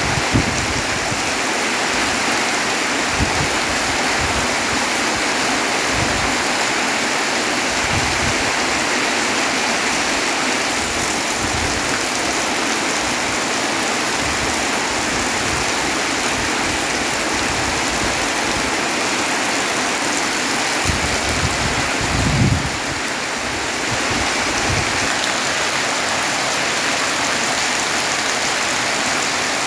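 Heavy rain pouring steadily, a dense even hiss, with scattered low thuds and a short lull about three-quarters of the way through.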